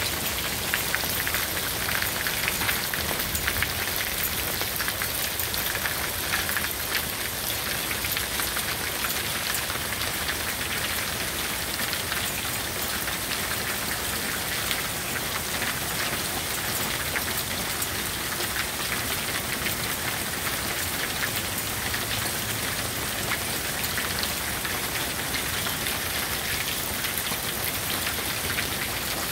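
Small hail and rain falling steadily on a patio, chairs and concrete: a dense, even crackle of countless small impacts.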